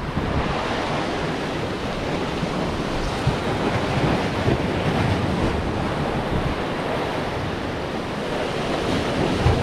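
Sea waves washing in and breaking against the rocks of a jetty, a steady churning surf with no letup.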